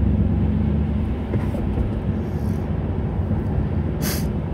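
Steady low rumble of a moving car heard from inside the cabin: engine and tyre road noise while driving. A brief hiss cuts in near the end.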